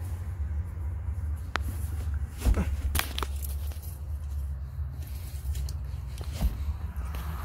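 Soft footsteps in sneakers on a carpeted floor, with scattered knocks and rustles from the hand-held camera, over a steady low rumble.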